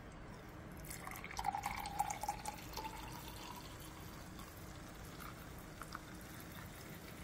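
Sparkling water poured from a bottle into a glass of grapefruit syrup, splashing loudest in the first few seconds, with the fine crackle of fizzing bubbles throughout.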